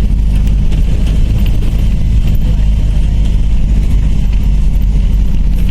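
Bus engine running steadily with a constant low drone.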